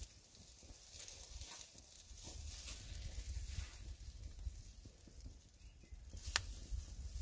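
A steak sizzling on a grill grate over a wood campfire: a steady faint hiss with a few small crackles, and one sharp pop about six seconds in.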